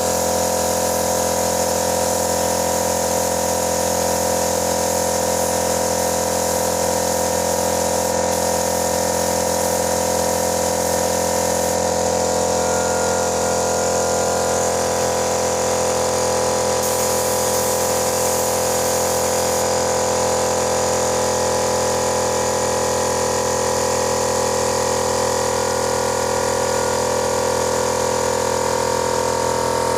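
Small air compressor running steadily for spray painting, a constant motor hum with a hiss of air and spray over it.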